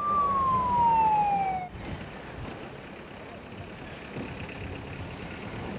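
A single siren-like tone sliding down in pitch for under two seconds, cut off abruptly, then the steady low rumble of World War II army jeeps driving slowly past.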